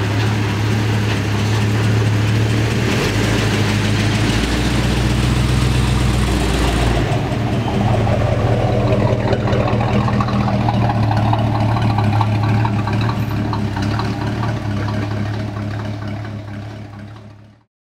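1954 Chevrolet pickup's engine running at low speed as the truck is driven slowly. A deeper note joins in from about three seconds in for several seconds, and the sound fades out just before the end.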